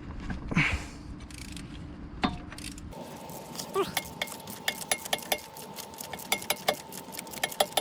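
Hand tool on a car's starter-motor mounting bolts: a metal wrench clicking and clinking in quick, irregular clicks from about three seconds in, after a couple of single knocks.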